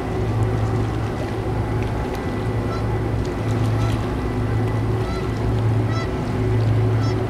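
Low, steady drone of a tugboat's diesel engines as it pushes a barge, swelling and easing slightly. Short bird calls sound several times over it.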